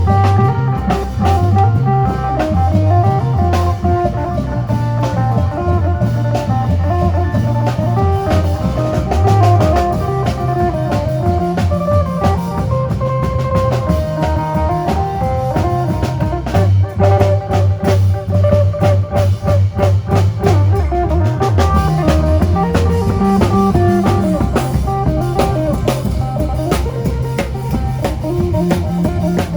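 Isan folk band music in lam phloen style: a phin (Isan plucked lute) plays a fast, busy melody over a bass line and a steady drum-kit beat.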